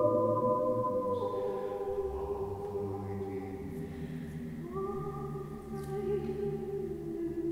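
A woman's and a man's voices singing unaccompanied in slow, chant-like long held notes. The pitch steps down about a second in, and a new higher note enters about two-thirds of the way through. The voices ring on in a reverberant marble hall.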